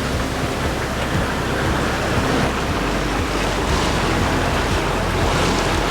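Steady rush of sea water around a sailboat under way, with wind buffeting the microphone as a low rumble underneath.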